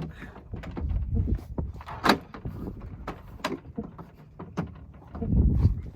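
Clicks and knocks of an RV door's replacement window frame being handled and fitted, with a sharp knock about two seconds in and another about a second later. Low rumbles come in at about one second and again near the end.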